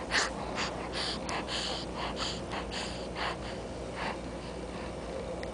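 A young baby's short, snuffly breaths and snorts close to the microphone, about a dozen quick irregular puffs, as he holds his head up lying on his front.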